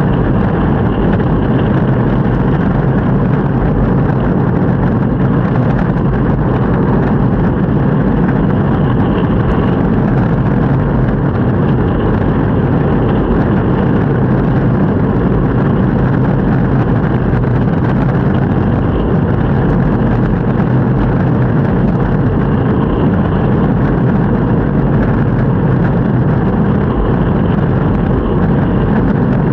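Longboard's urethane wheels rolling over city pavement: a steady, low rumble of road noise.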